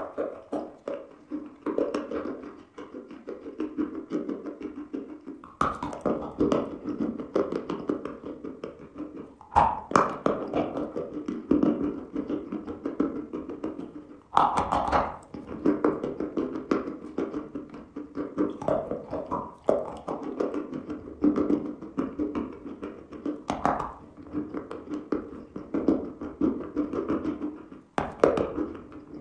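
A person biting into and chewing dry chunks of chalk. Sharp crunches of fresh bites come every few seconds, with steady crumbly crunching and chewing between them.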